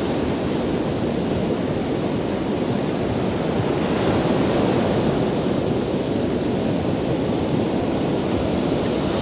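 Heavy ocean surf breaking on the shore, a steady rush of waves.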